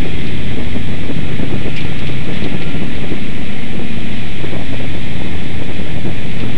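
Limited Sportsman stock car's engine running hard at racing speed through the turns, loud and steady, picked up by a camera mounted on the car's hood, with wind buffeting the microphone.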